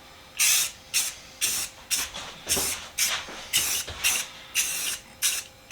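Aerosol can of Rust-Oleum gloss spray paint being sprayed in short strokes: about eleven brief hisses, roughly two a second, with short gaps between.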